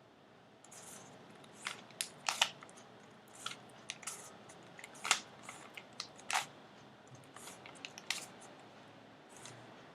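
Plastic Rubik's Cube layers being twisted by hand: irregular clicks and short rasps of the turning faces, sometimes in quick runs and sometimes with pauses.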